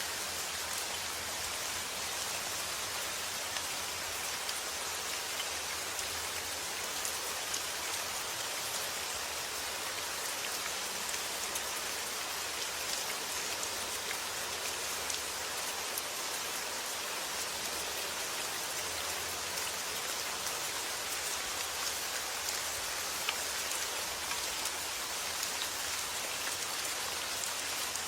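Steady summer rain falling on surfaces: an even hiss with scattered individual drop taps.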